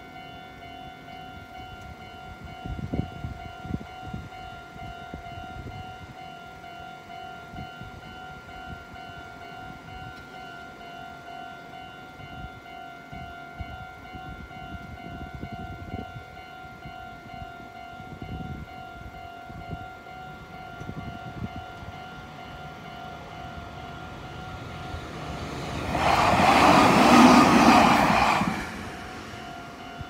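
Level-crossing warning alarm ringing steadily, with occasional low rumbles from road traffic. About 26 seconds in, a Meitetsu train passes through the crossing. It rises to a loud rush for about three seconds and then fades.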